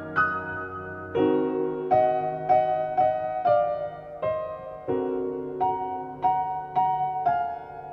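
Slow, gentle piano music: a single-note melody, about a note every half second, over held chords that change every few seconds.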